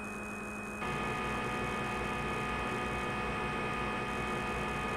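Simulated CNC lathe machining sound from the simulation software: a steady hum with several held tones, growing louder and fuller about a second in as the drilling cycle runs.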